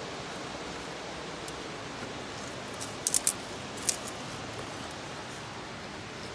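Steady rush of a flowing river. About three seconds in, three sharp high clicks come in quick succession, and one more follows just before four seconds.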